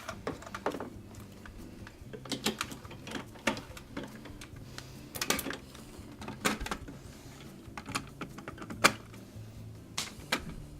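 Irregular clicks and knocks of plastic dishwasher control parts being handled and fitted back into the control panel.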